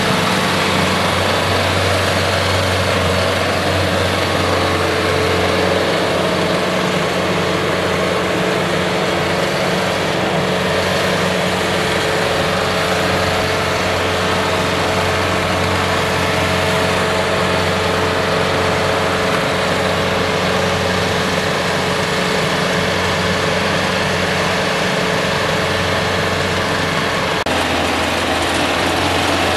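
Daedong tractor's diesel engine running steadily under load while it drives a rear rotary tiller through the soil, with a steady whine over the engine note.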